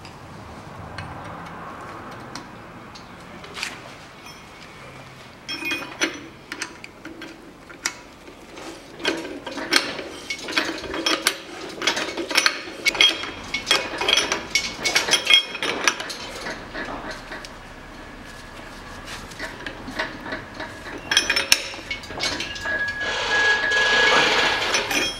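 Socket wrench turning down the top-mount nut on a car's front strut rod: runs of quick metal clicks and clinks, in two spells with a lull between.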